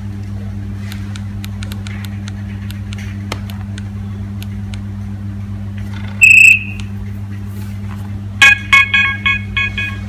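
Old Nokia mobile phone: faint keypad clicks as the menu buttons are pressed, then a single loud beep about six seconds in. From about eight and a half seconds a monophonic ringtone preview starts playing as a quick run of beeping notes.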